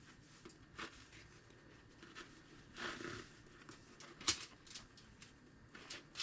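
Knife cutting open bread rolls: faint scraping and crust crackle with light taps, and a sharper click a little after four seconds in.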